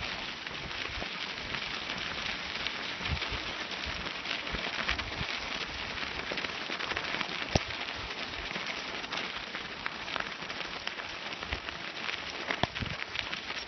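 Steady crackling hiss of a dog-drawn rig's wheels rolling over a dirt and gravel road behind a running team, with scattered small ticks and one sharp click about halfway through.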